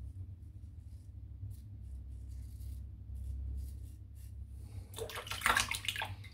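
Faint, short scratching strokes of a Feather Artist Club straight razor through lather and stubble. About five seconds in comes a loud, splashy burst of water lasting just over a second, as the blade is rinsed.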